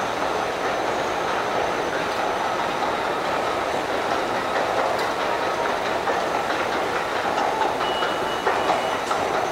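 Steady, loud mechanical rumble with a light clatter running through it, and a faint high tone near the end.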